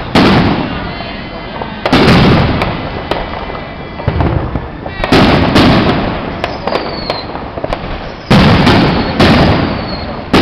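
Consumer aerial firework shells bursting overhead: about six loud booms in ten seconds, each trailing off in a rolling echo, with smaller pops and crackle between them and a faint falling whistle past the middle.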